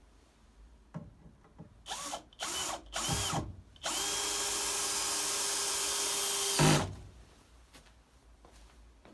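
Power drill: three short trigger bursts that spin up and down, then a steady run of about three seconds that ends in a loud clunk.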